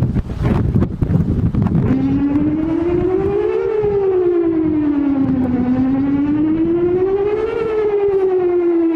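Whelen WPS-4008 electronic outdoor warning siren starts about two seconds in, sounding a slow wail that rises and falls in pitch about every four seconds. Before it starts, wind buffets the microphone.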